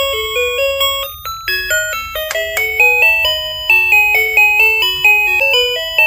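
Toy washing machine's built-in music chip playing a simple electronic tune: a quick run of short, beeping notes, about three or four a second.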